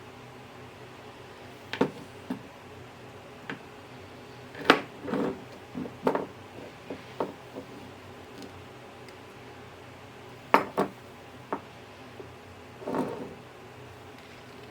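Irregular clicks, taps and light clatter of small tools and parts being handled during a repair, about a dozen in all with two sharper knocks, over a faint steady hum.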